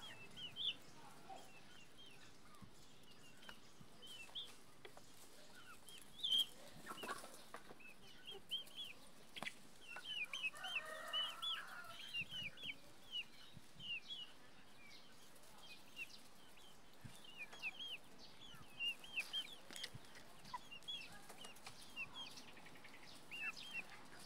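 Chickens calling faintly: a steady run of short, high peeping calls, with one longer, lower call about eleven seconds in.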